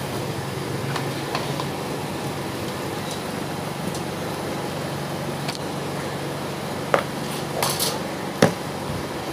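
A few light clicks and knocks of pliers and the plastic speed-switch housing of a floor fan being handled, the sharpest two near the end, over a steady low hum of background noise.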